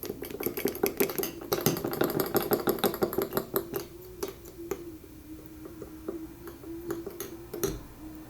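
An electric mixer whipping hulba, its small motor running steadily with slight changes in pitch as the load shifts. Rapid clattering of the beaters against the bowl is dense for the first few seconds, then thins to occasional clicks.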